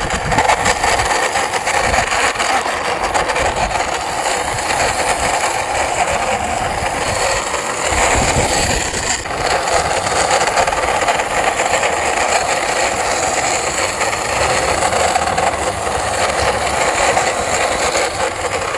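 A heavy truck engine running steadily without a break, an engine sound laid over the hand-pushed toy dump truck; it starts and cuts off abruptly.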